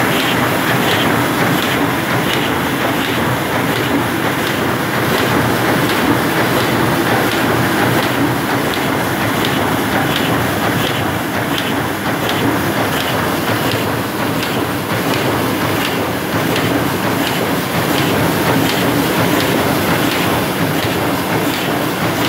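Heidelberg 28×40 offset printing press running, a loud steady mechanical clatter with a regular ticking beat from its cycling grippers and sheet delivery.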